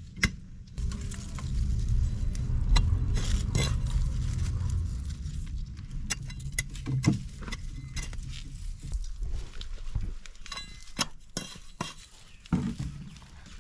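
Small hand hoe digging and scraping into dry, crumbly soil, with scattered crunches and clicks as soil is broken up and pressed around the planted roots.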